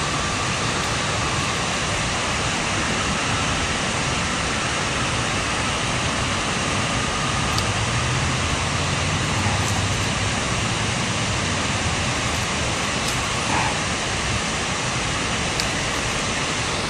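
Steady, unbroken rushing of water pouring through the dam.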